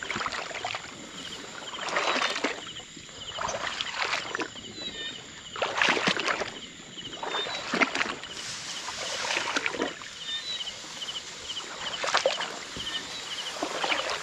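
Footsteps wading through shallow water and grass in a flooded rice field, sloshing and splashing every couple of seconds. Behind them a small animal chirps steadily in rapid pulses.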